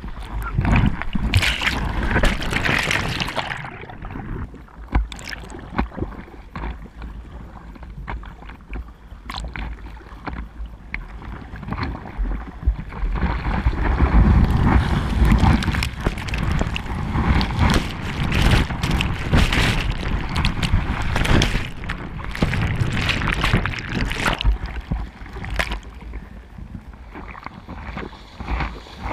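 Seawater splashing and sloshing around a camera at water level on a bodyboard, with breaking waves churning. Louder rushes of water come about a second in and again around halfway.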